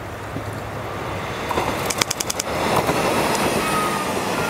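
Two-car Aizu Railway AT-700/AT-750 diesel railcar train approaching and passing close by, its running noise growing louder. About two seconds in, a quick run of sharp clacks as the wheels cross the rail joints.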